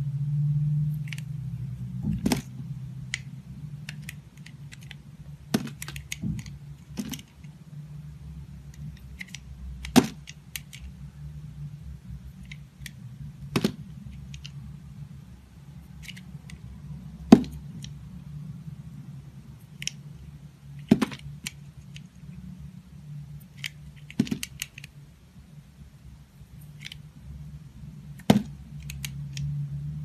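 Snap-off utility knife blade cutting through a bar of layered soap: sharp, crisp cracks and clicks, a loud one every three to four seconds with fainter ones between, over a low steady hum.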